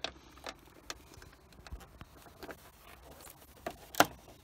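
Scattered light clicks and taps of a wrench and hands working among hoses and metal parts in a car's engine bay, with one sharper click about four seconds in.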